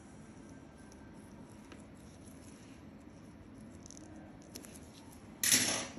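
Quiet room with a few faint ticks of a metal nail spatula working under an ingrown toenail, then a sudden short burst of hiss near the end, the loudest sound.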